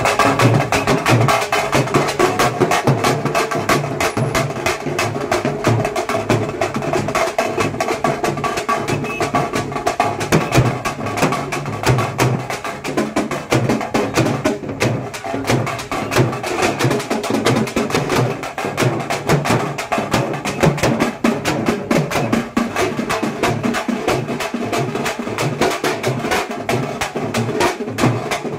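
Loud, fast drumming: a busy, rapid run of drum strikes with a steady beat that goes on without a break.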